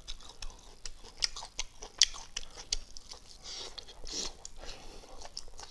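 A man chewing a mouthful of fried chicken wing close to a clip-on microphone: irregular sharp crunching clicks and wet mouth smacks, the sharpest about two seconds in.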